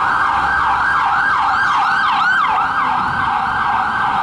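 Loud emergency-vehicle siren sounding in a fast yelp: rapid rising-and-falling pitch sweeps, repeating without a break.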